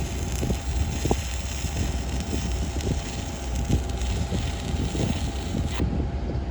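Arc welding on the steel pump pipe: a steady crackling hiss over a low machine hum, with scattered sharp crackles. The hiss cuts off abruptly near the end.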